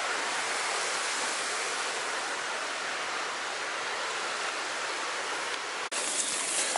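Steady, even rushing noise of the outdoors. About six seconds in it cuts off sharply and gives way to louder, brighter rustling noise.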